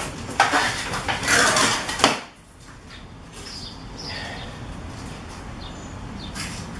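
Packing materials being handled: loud scraping and rustling for about two seconds, then quieter handling sounds.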